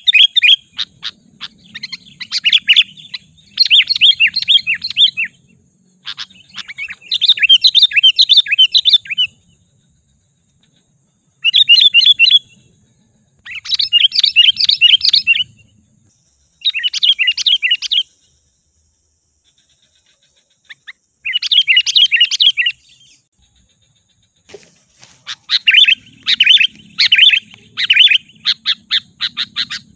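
Sooty-headed bulbul (kutilang) singing: about nine bursts of quick, bubbly chirping phrases, each a second or two long with short pauses between, running almost without a break near the end. It is a lure song (pikat), meant to provoke wild bulbuls.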